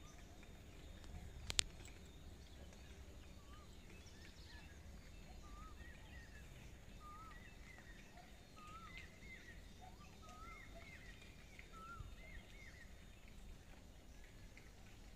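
Faint birds chirping: short rising-and-falling notes repeated every second or so, over a low outdoor rumble, with one sharp click about a second and a half in.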